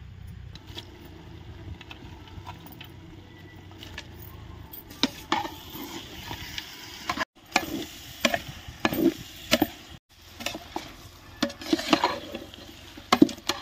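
A ladle stirring and scraping a large pot of frying onions and tomatoes, over a low sizzle. Faint at first, the scraping strokes grow loud and irregular from about five seconds in, some with a short metallic ring.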